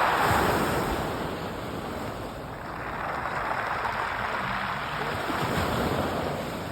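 Sea waves washing onto a pebble beach: the hiss of one wave dies away over the first two seconds or so, and the next swells up again.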